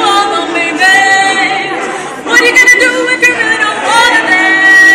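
An a cappella vocal group singing in harmony, several voices holding notes and moving between them with no instruments. The singing dips about two seconds in, then comes back louder.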